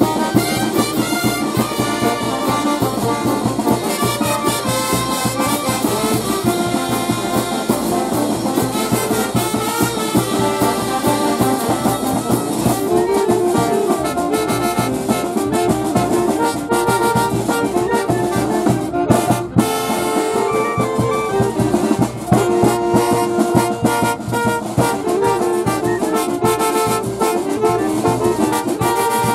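Brass band playing loudly: trumpets, trombones and sousaphones over a steady beat from bass drum, snare drum and cymbals, with a short break about two-thirds of the way through.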